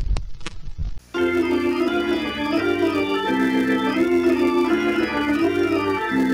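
A few sharp hits in the first second, then organ music starts about a second in: held chords with a melody over them.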